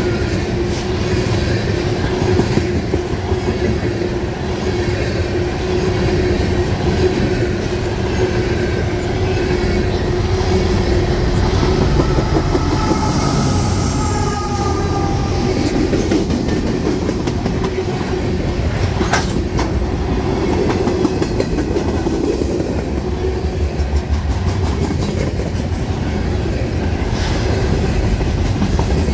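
Freight train rolling past at close range, its cars' steel wheels running on the rails, with a steady tone in the first half. A mid-train diesel locomotive goes by about halfway through, followed by more freight cars.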